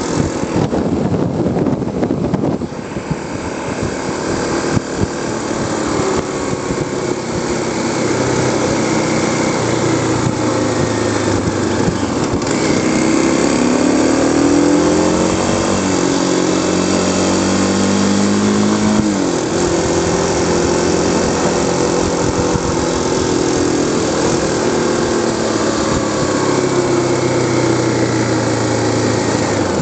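Kawasaki KLX250S single-cylinder four-stroke engine running while the bike rides downhill, its pitch rising and falling with the throttle. Wind rushes at the microphone for the first few seconds. The pitch climbs slowly, then drops sharply about nineteen seconds in.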